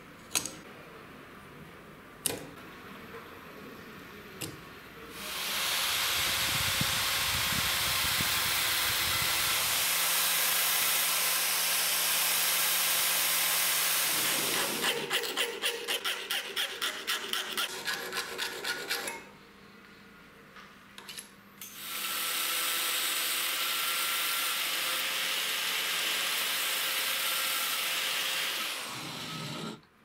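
Steel sleeve in a metal vise being worked: a few light ticks of marking out, then a power tool cutting slots into the steel with a steady grinding noise for about nine seconds. A hand file rasps across the metal in quick strokes, about four a second, and the power tool cuts again for several seconds, stopping just before the end.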